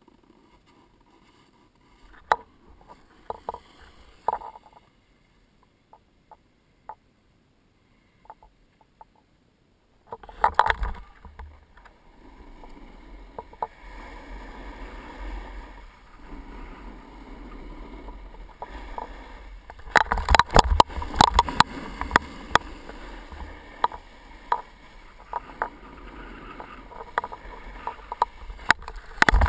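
Snowboard sliding down groomed snow: a continuous scraping hiss from the board with heavy wind buffeting on the camera microphone and many sharp knocks, starting about ten seconds in. Before that come a few scattered clicks and knocks.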